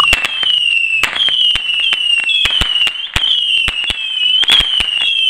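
Ground fountain firework going off, giving a run of high whistles, about two a second, each dropping slightly in pitch, over a steady stream of sharp crackling pops.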